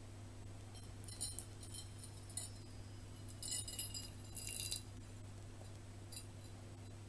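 Hot water poured from a ceramic teapot into a china soup plate: a few light, ringing ceramic clinks and a brief splashing trickle as the thin stream hits the plate, between about one and five seconds in.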